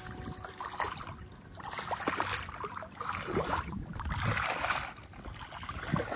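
Shallow muddy tidal water sloshing and splashing around a person's legs as he wades through it, in uneven swells about once a second.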